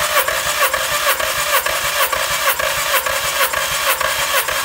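Skoda Rapid's 1.6-litre CWVA four-cylinder petrol engine being cranked on the starter motor, with an even beat of about four pulses a second. This is a compression test of cylinder two, with the gauge needle climbing toward 13 kg/cm².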